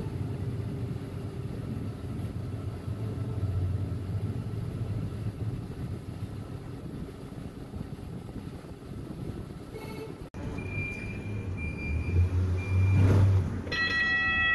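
Light rail train at a station: a steady low rumble with some wind noise. After a brief break about ten seconds in, a thin high tone holds for a couple of seconds. Near the end a louder pitched warning tone starts and keeps sounding.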